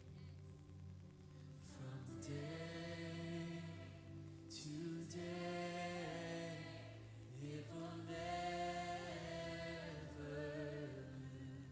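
Slow worship music of several voices singing long, held notes in phrases a few seconds long.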